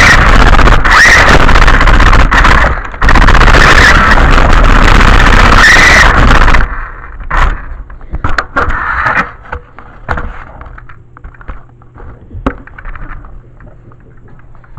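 RC car driving, very loud and close: a motor whine that rises and falls over the noise of its tyres on the ground. About six or seven seconds in it drops away suddenly, leaving scattered clicks and scrapes.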